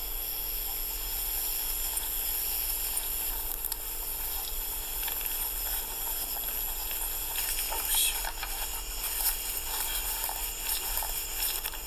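Night insect chorus over a grassy field: a steady high hiss, with people moving through tall grass and a low steady hum underneath.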